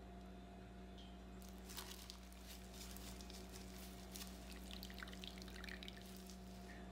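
Grated red onion squeezed in a cloth by gloved hands, the onion juice squishing and dripping into a bowl, with small crackles from about a second and a half in, over a faint steady hum.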